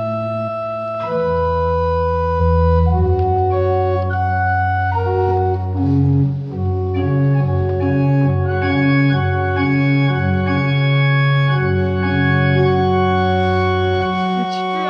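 Church organ played with both hands: sustained chords that change every second or so, and from about halfway a bass line of short repeated notes under held upper notes, stopping near the end.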